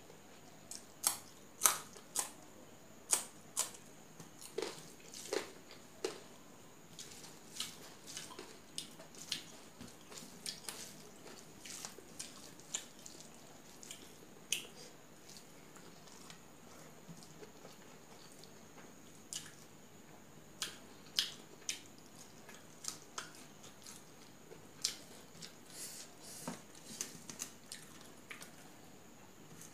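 Close-up eating sounds: crunching bites and wet chewing of a raw green chilli and hand-fed rice, heard as irregular sharp crunches and mouth clicks, loudest in the first few seconds and again past the middle.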